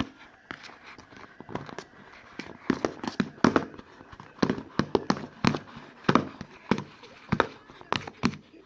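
Sticky homemade slime being stirred and worked, making irregular wet pops and clicks, a few a second, louder after the first couple of seconds. The slime is still too sticky, not yet ready.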